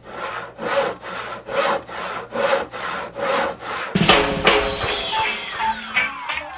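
Even back-and-forth rasping strokes, alternating strong and weak, a little over two a second, like sawing. About four seconds in they give way abruptly to music with a long falling whistle-like glide.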